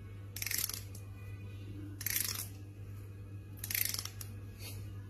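Fingernail drawn along the teeth of a plastic comb: a short rasp four times, about every second and a half, over a steady low hum.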